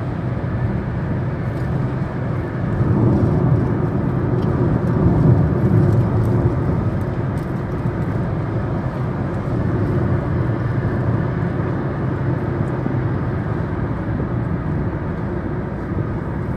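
Steady drone of a car driving at highway speed, heard from inside the cabin, swelling slightly a few seconds in.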